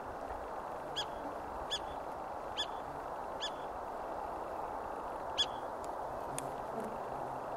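Long-tailed duck giving short, high, nasal calls: four spaced just under a second apart, then a louder fifth a couple of seconds later, over a steady background rush.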